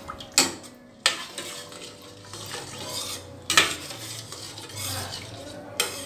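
A long metal spoon stirring rice in water in a stainless-steel pot, scraping and sloshing, with a few sharp clinks of the spoon against the pot.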